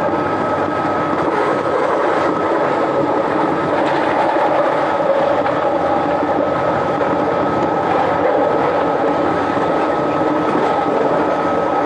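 Scarborough RT train (UTDC ICTS Mark I cars) running steadily, a constant rumble with a thin high tone held over it.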